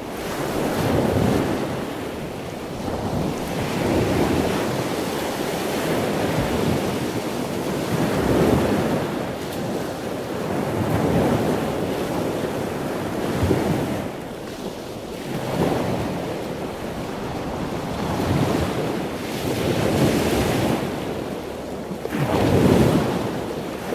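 Ocean waves washing onto a beach, a rushing hiss that swells and falls back about every two to three seconds.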